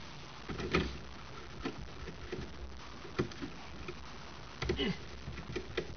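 Scattered light clicks and taps of hand work on a steering column, as a lock plate compression tool is screwed down onto the steering shaft, over a low steady hum.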